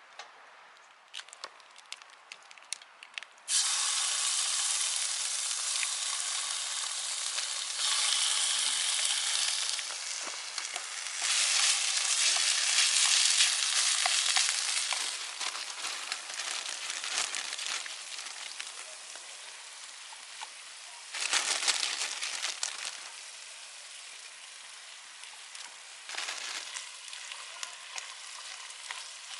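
Food frying in a hot pan. A few light clicks come first; then a loud sizzle starts suddenly a few seconds in as the food goes in. The sizzle swells and eases, with fresh bursts of sizzling later on.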